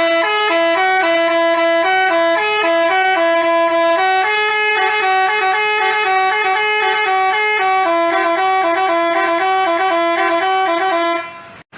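Basuri telolet bus horn playing a tune: quick stepped notes, two at a time, that cut off suddenly near the end.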